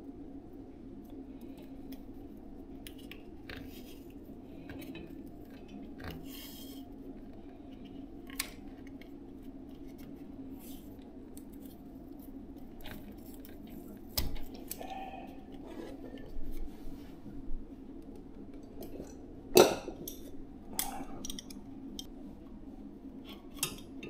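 Metal bicycle hub parts and hand tools clinking and clicking as a rear hub is put back together by hand. There are scattered sharp ticks and knocks, the loudest about two-thirds of the way in, over a steady low hum.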